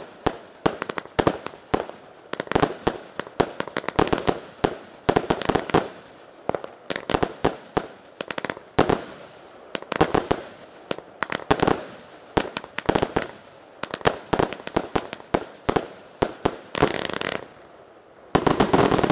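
SFC9001 consumer firework battery firing shot after shot, about one to two a second, each shot a cluster of sharp bangs and cracks. Near the end come a longer rushing burst, a short lull, then one more loud burst.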